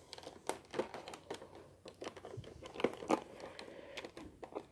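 Clear plastic blister packaging crinkling and clicking under fingers as it is pressed and pried at, a run of irregular light taps and crackles. The plastic cores are being worked out of their tray.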